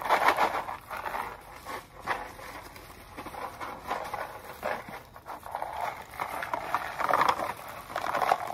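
Plastic bag and food packaging rustling and crinkling as they are handled, in irregular bursts.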